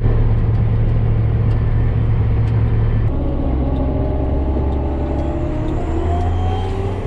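John Deere 9400 four-wheel-drive tractor's diesel engine running under load as it gets under way. The note changes about three seconds in and then climbs slowly in pitch as it speeds up.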